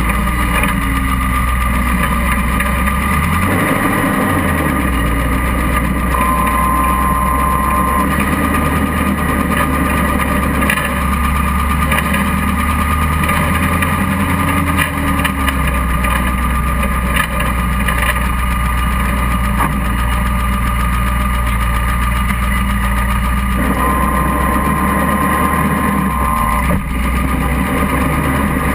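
Off-road buggy engine running steadily while the buggy crawls through a mud pit, with a thin high whine that comes in twice.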